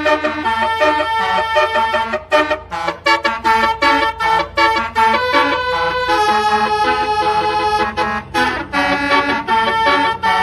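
A Damri bus's telolet basuri musical horn playing a melody: a run of pitched horn notes stepping up and down, with a few brief breaks and one longer held stretch about six to eight seconds in. A steady low hum runs underneath.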